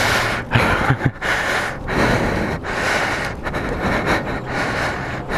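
A man's heavy, rapid breathing close to the microphone, a rushing breath roughly every second or faster.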